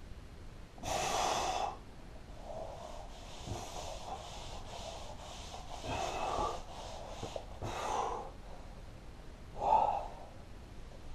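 A man breathing hard through push-ups: several forceful exhales, the loudest about a second in and just before the end, with quicker, fainter breaths between.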